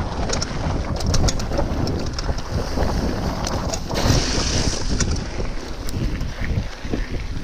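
Wind buffeting the microphone on a mountain bike descending a dirt trail, with the tyres rolling over gravel and the bike rattling in many short clicks. A brief louder hiss comes about four seconds in.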